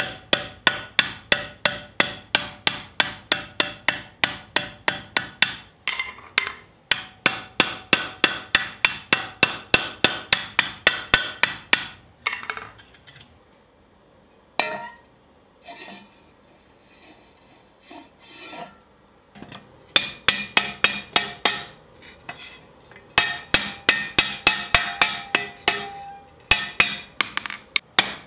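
Hand hammer striking the red-hot rim of a forged steel skillet on an anvil, quick even blows at about four a second, each with a metallic ring. Twice the hammering stops briefly. About midway there is a longer pause of several seconds with only a few soft knocks and scrapes as the pan is shifted on the anvil, and then the blows resume.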